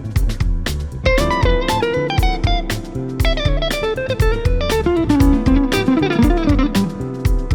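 Live band playing an instrumental passage: an electric guitar lead line with bent notes over bass guitar and drums.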